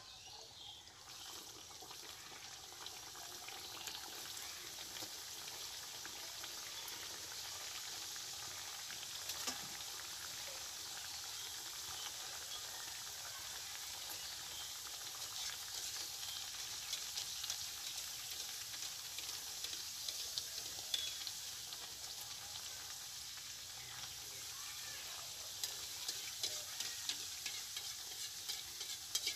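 Nimki dough pieces deep-frying in hot oil in a steel wok: a steady sizzling hiss that builds over the first few seconds after the batch goes in, with scattered crackles and pops.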